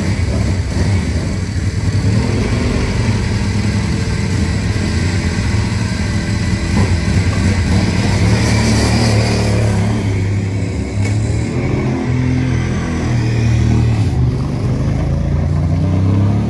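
Ducati 998 RS superbike's 90-degree V-twin engine running loudly and being blipped, its pitch rising and falling again and again.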